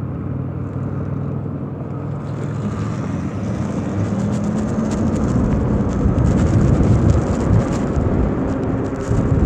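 Gusty wind rushing over the microphone, growing louder after about two seconds. A steady low hum lies under it at the start.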